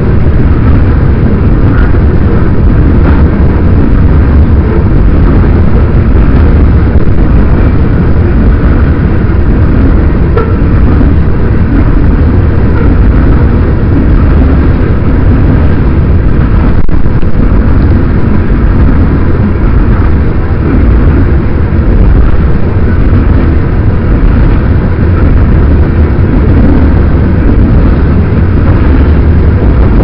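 Loaded coal gondolas of a freight train rolling past close by, a steady low noise mixed with heavy wind buffeting the microphone.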